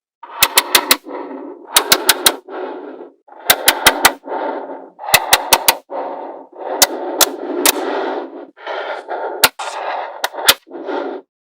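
Small neodymium magnetic balls snapping together in quick runs of three or four sharp clicks, with a rattle of loose balls between the runs. Near the end the clicks come singly.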